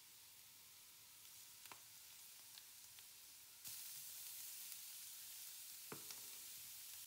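Grated carrot and diced onion frying in a pan with a faint, steady sizzle that gets louder about halfway through. A spatula stirring the vegetables taps or scrapes against the pan a couple of times.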